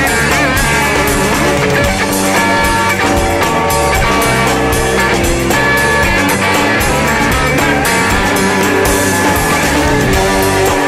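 Instrumental stretch of a rock song: guitar over bass and drums with a steady beat.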